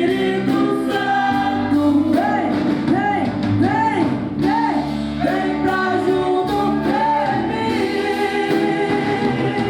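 Live gospel worship song: singers hold wavering, vibrato notes over a band accompaniment.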